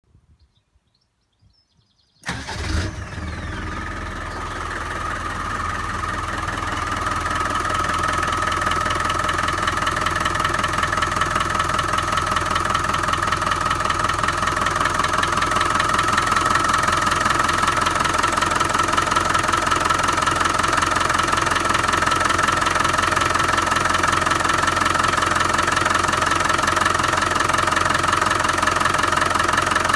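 Land Rover 300Tdi 2.5-litre four-cylinder turbodiesel starting about two seconds in, then idling steadily with a knock whose cause is unknown to the owner.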